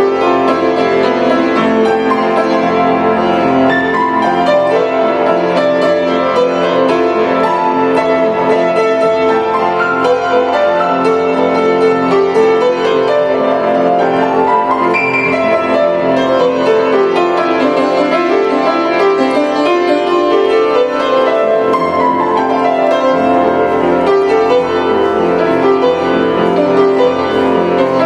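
Grand piano played with both hands in a continuous, flowing piece, with runs sweeping down and back up the keyboard in the middle.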